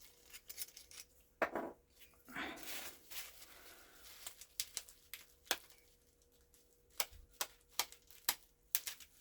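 Sharp clicks, taps and short scrapes of a small knife being worked against a tight plastic bottle of acrylic nail monomer to get it open, with a quick run of clicks near the end.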